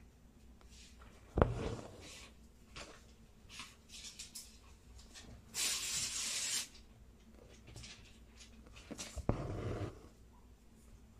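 Hand embroidery in a hoop: a sharp knock about a second in, then a rasp lasting about a second in the middle as double-strand thread is drawn through the taut fabric, and a rustling knock near the end.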